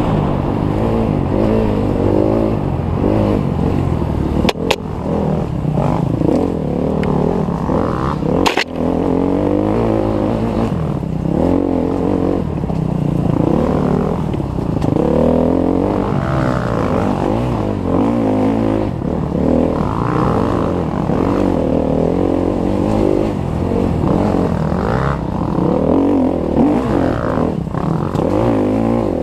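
Off-road dirt bike engine heard from the rider's helmet, revving hard and easing off over and over as it is ridden along a rough trail, its pitch rising and falling every second or two. Two sharp knocks come about four and a half and eight and a half seconds in.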